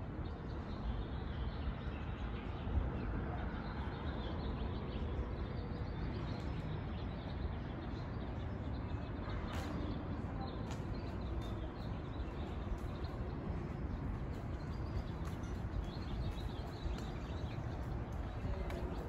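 Outdoor ambience: wind rumbling and buffeting on the phone's microphone, with faint bird chirps.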